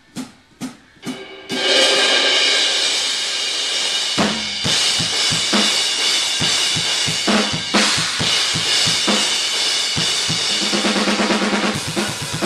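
Drum kit played hard, close-miked for tracking: a few quick clicks, then from about a second and a half in a groove of kick drum and snare under constant crashing cymbals, with a quicker run of drum hits near the end.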